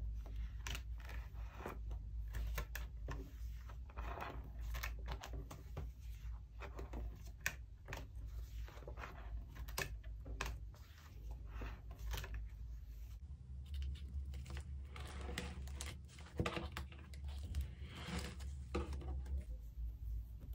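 Clear plastic binder sleeves rustling, crinkling and clicking as pages holding photo prints are turned one after another in a ring binder, with many sharp taps and ticks of the plastic.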